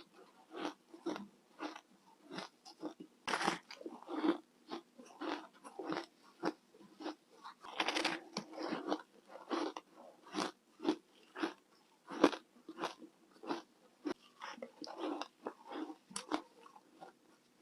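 Close-up crunching of a person biting and chewing refrigerator frost ice. Short, crisp crunches come one after another at an irregular pace, about one to two a second.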